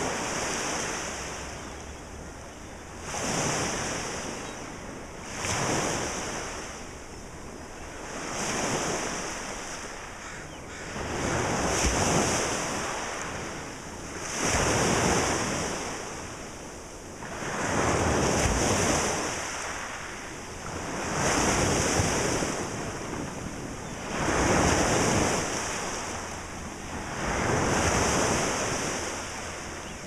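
Small waves breaking and washing up a pebbly beach, the surf swelling and falling back about every three seconds.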